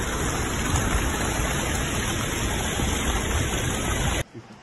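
Steady, loud rush of floodwater and rain with a deep rumble underneath. It cuts off abruptly about four seconds in.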